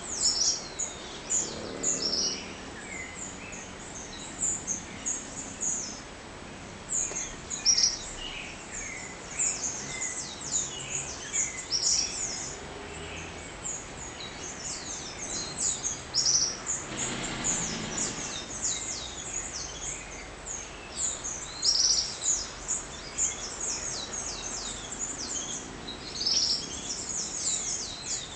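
Dawn chorus of many small birds chirping, with short, high, downward-sweeping chirps overlapping densely. A brief rushing noise passes about seventeen seconds in.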